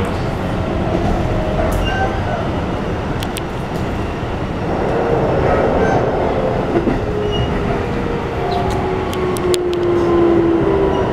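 Keikyu New 1000 series electric train heard from inside the passenger car: the Toyo IGBT-VVVF inverter and traction motors whine over the steady rumble of wheels on rail. The whine slowly falls in pitch through the second half as the train slows. A few sharp clicks come through about a third of the way in and again near the end.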